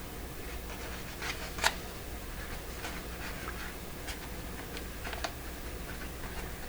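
Paper patches and cloth being handled against a paper speaker cone: scattered soft taps, scrapes and rustles, with one sharper click about one and a half seconds in, over a steady low hum.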